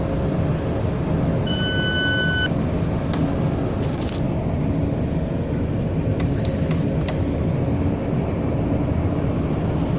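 Steady low rumble of a cargo ship's engine and hull at sea, with a faint hum. About a second and a half in, a single electronic beep lasts about a second, and a few faint clicks follow later.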